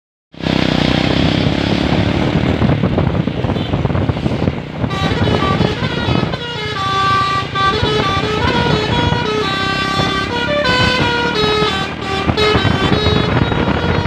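A bus engine and road noise are heard at first. About five seconds in, the coach's telolet musical air horn starts playing an Indian-style tune, its notes stepping up and down over the engine.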